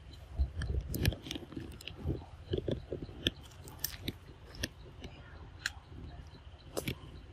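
A monkey biting and chewing a ripe mango, a run of uneven short clicks and wet crunches.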